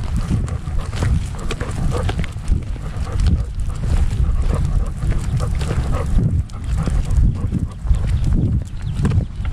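A Labrador retriever panting as it walks, picked up by a camera harness on its back, with heavy low rumbling and knocks from the harness jolting at each step.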